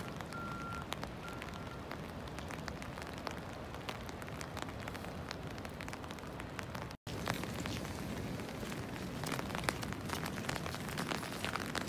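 Steady rain and wind noise outdoors, with many small raindrop ticks that grow more frequent after a break about seven seconds in. A faint repeated beep sounds during the first two seconds.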